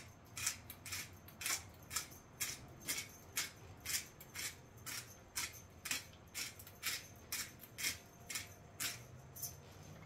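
Pepper grinder being twisted over meat, giving an even run of short crunchy grinding rasps at about two a second.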